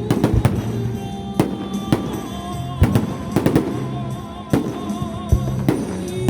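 Fireworks bursting in a series of sharp, irregular bangs, one or two a second, over music playing in the background.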